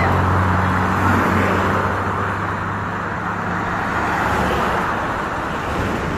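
Vehicles passing close by on a road: a low engine hum fades after about two seconds, over steady tyre and traffic noise.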